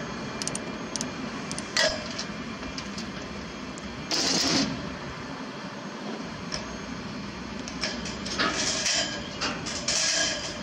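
Steady low running noise of a heavy truck. A sharp click comes about two seconds in, a short hiss about four seconds in, and several more brief hisses near the end.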